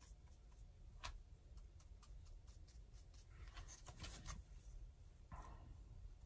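Near silence, with faint scratchy strokes of a dry paintbrush on a duck decoy's surface and a few soft ticks as the decoy is handled.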